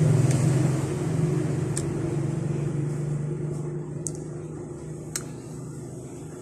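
A steady low motor-like hum that slowly fades, with a few sharp mouth clicks and smacks from sucking santol pulp off the seeds.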